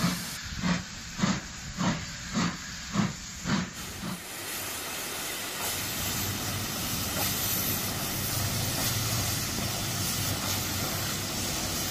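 Steam locomotive working: evenly spaced exhaust chuffs, about two a second, for the first four seconds, then a steady hiss of steam.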